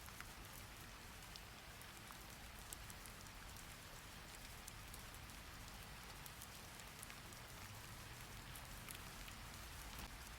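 Soft steady rain falling, a continuous hiss with scattered small drop ticks.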